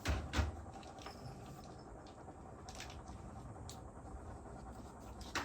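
Handling noise from preparing cat food: two sharp knocks right at the start, then light scattered clicks and taps, and another knock near the end.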